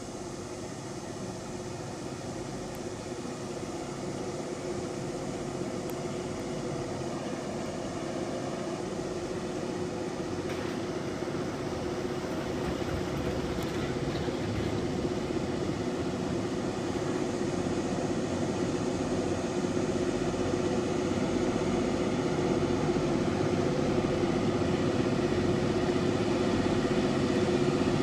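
Three EMD GP15 two-stroke diesel-electric locomotives working at full throttle up a grade, a steady engine drone that grows steadily louder as the train approaches.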